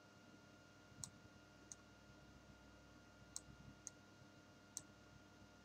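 Five faint, sharp clicks of a computer mouse button spaced irregularly over a few seconds, as sculpt strokes are made, over a faint steady electrical hum.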